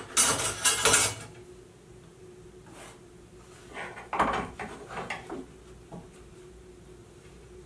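A metal combination square being handled on a wooden board: a burst of sliding and clattering in the first second, then a few knocks and rubs about four seconds in as it is repositioned to scribe a test line for squareness.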